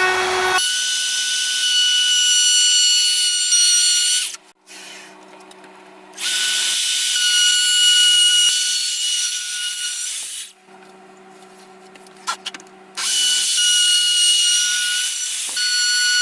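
An electric router cutting wood in shallow passes. There are three loud stretches of high-pitched cutting sound, each a few seconds long, and the router hums more quietly between them.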